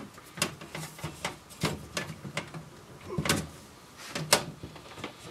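Irregular clicks and knocks of sheet metal and plastic clips as the rear panel of a Sony CDP-CX350 CD player is worked by hand to free its bracket hooks from their holes, the sharpest knock about four seconds in.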